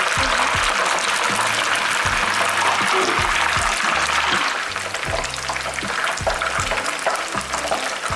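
Battered chicken wings deep-frying in hot oil, a dense sizzle full of small crackles that eases slightly about halfway through. Background music with a steady low beat plays underneath.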